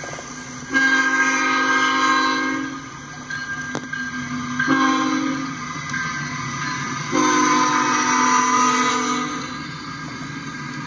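Horn of a CSX freight locomotive sounding at a grade crossing: a long blast, a shorter one, then another long blast, each a chord of several tones. A steady rumble of the train rolling past runs under the blasts and carries on after them.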